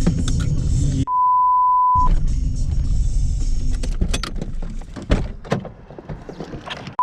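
Car engine running with a loud rumble, cut off about a second in by a one-second, steady 1 kHz censor bleep. The engine noise then returns with scattered sharp clicks and knocks and fades toward the end.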